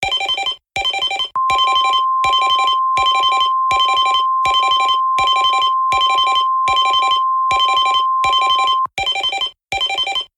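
Electronic emergency-alert alarm: short chord-like beeps pulse about once every three quarters of a second. A long steady alert tone, the NOAA weather radio warning alarm tone, sounds under the beeps from about a second and a half in until near the nine-second mark, then the beeps carry on alone.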